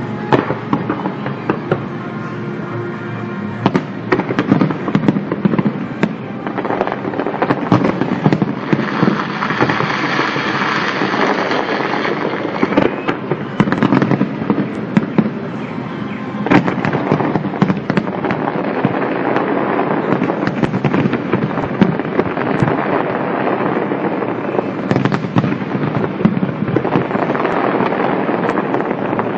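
Fireworks going off in rapid, irregular succession, many bangs and crackles, starting about three and a half seconds in, with music playing.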